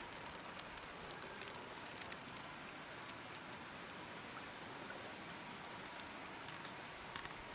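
Faint forest ambience: insects keep up a steady high-pitched drone, with a few short chirps and scattered light clicks.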